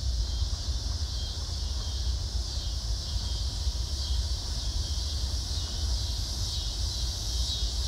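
Outdoor ambience: a steady high-pitched insect chorus, with wind rumbling on the microphone.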